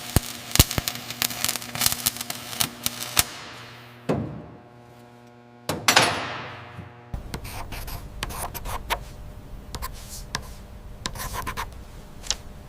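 Work sounds in quick succession: a run of sharp taps and scraping clicks, then two falling whooshes, then a low steady hum with scattered ticks.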